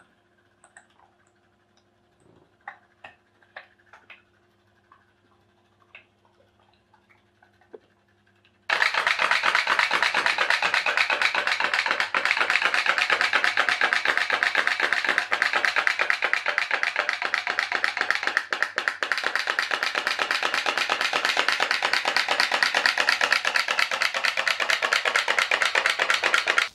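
Faint scattered ticks, then about nine seconds in a tea-light-heated pop-pop (putt-putt) steam boat starts up loud: a fast, even popping from its little boiler as steam pulses push water out of the exhaust tubes.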